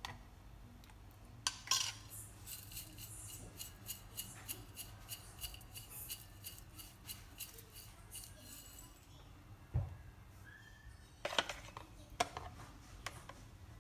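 A small glass jar of crispy fried shallots shaken over a bowl of soup, the dry pieces rattling in quick, light clicks for several seconds. Then a low thump and a few sharper knocks of things being set down.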